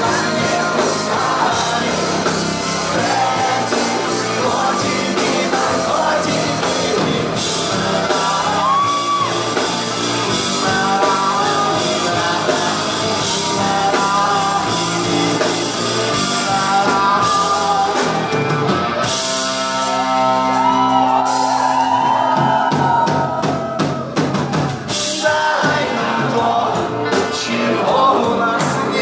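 Live rock band playing: a male singer over electric guitar, bass guitar and drums, heard from the audience. About two-thirds of the way through, the drums ease off for a few seconds under sustained chords before the full band returns.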